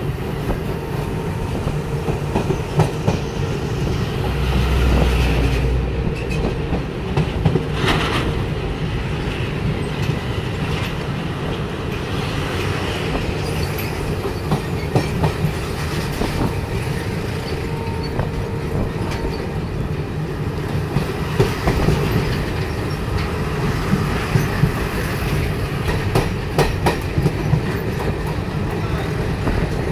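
Train running at speed, heard from aboard: a steady rumble of wheels on rails with irregular clacks as the wheels cross the rail joints.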